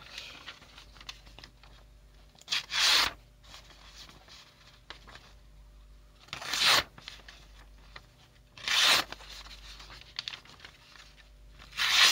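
A sheet of paper being sliced through four times by a freshly sharpened AKM bayonet, each cut a short rasping swish. The blade cuts cleanly through the page, which shows it is very sharp.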